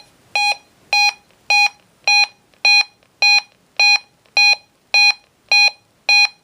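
Electronic alert beeps from a weather alert receiver, a steady train of short identical tones just under two a second, each about a third of a second long.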